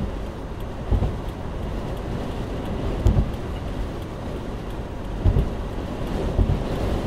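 Steady road and wind noise inside a 2014 Subaru Crosstrek cabin at highway speed, picked up by the dashcam, in a strong gusting wind. Several dull low thumps come at uneven intervals.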